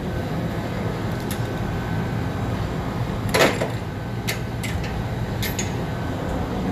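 Steady low mechanical hum of commercial kitchen equipment, with one sharp knock about halfway through and a few light clicks after it.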